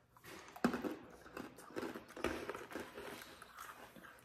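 Freeze-dried Airhead Bites candy being bitten and chewed: an irregular run of crisp crunches, with a sharp crack about half a second in and another a little after two seconds.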